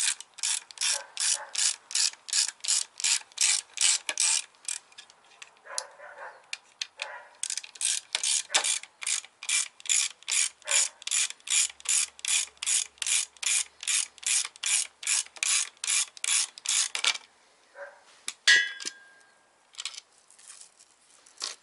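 Ratchet wrench clicking in quick, even strokes, about four a second, in two runs with a short pause between. Near the end there is a single metallic clink with a brief ring.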